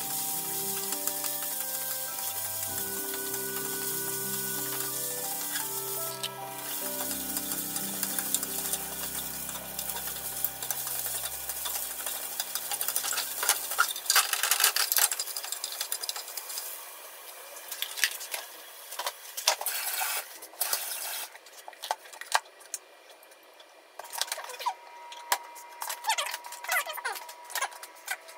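Carrot strips sizzling in a rectangular tamagoyaki frying pan, stirred and scraped with wooden chopsticks. Background music plays over the first half and stops about halfway through. The sizzle fades in the later part, which is left with scattered light clicks and knocks.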